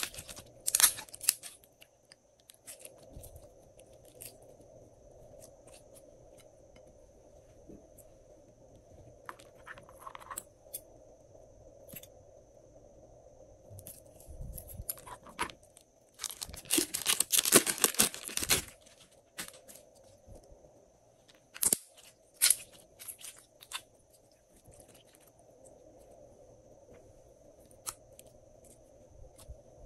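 Hands squishing and handling glossy slime, with scattered wet crackles. Scissors then cut open a soft plastic slime container, with a loud burst of cutting and tearing lasting about two seconds, a little past halfway, followed by a few sharp snips.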